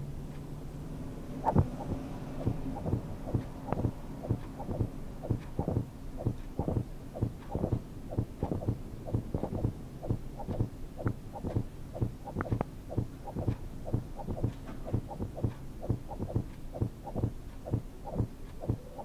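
A steady run of short low thumps, about two to three a second, carrying on throughout, with a low steady hum underneath at the start.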